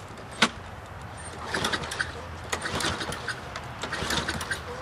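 Toro Recycler lawn mower's 6.5 hp engine being pull-started for a test run after a spark plug thread repair: a sharp click about half a second in, then the recoil starter cranking the engine in a quick, uneven rattle from about a second and a half in.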